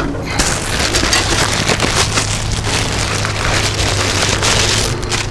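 A plastic bag being handled and pulled open, with a dense crackly crinkling.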